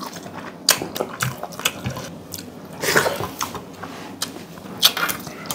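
Close-up eating sounds: chewing and small wet mouth clicks as a mouthful of rice and dal is eaten by hand, with scattered light ticks and a brief louder smacking noise about three seconds in, picked up by a clip-on microphone on the eater's chest.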